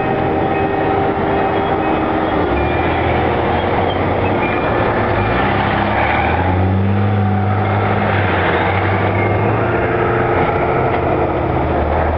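Church bells ringing continuously, several steady tones at different pitches overlapping and changing every second or two, over a loud, steady rumble of background noise.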